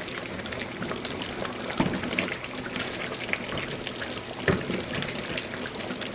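Chicken in a thick coconut-milk and tomato sauce simmering and crackling in a pan while a spoon stirs through it. There are two knocks of the spoon against the pan, about two seconds in and again about four and a half seconds in.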